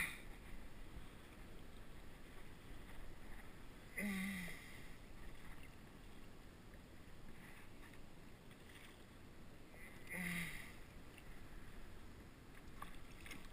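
Faint, steady water and wind noise around a sit-on-top fishing kayak on open sea water. A person makes two brief falling vocal sounds, about 4 and 10 seconds in.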